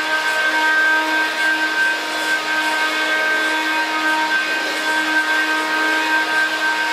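Hoover Dial-A-Matic Model 1140 upright vacuum cleaner running steadily, a constant motor whine over the rush of air.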